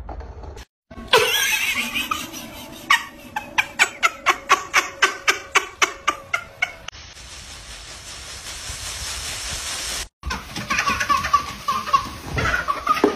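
A quick run of sharp clicks, about four a second, then a steady hiss. After a sudden cut, a baby laughs.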